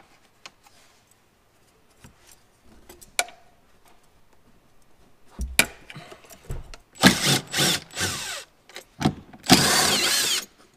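Cordless impact driver backing out the bolts that hold the rear trim panel to a Jeep Wrangler JL's cargo deck. It runs in several short bursts from about five seconds in, then in a longer run near the end. Before that there are a few light plastic clicks from the trim being handled.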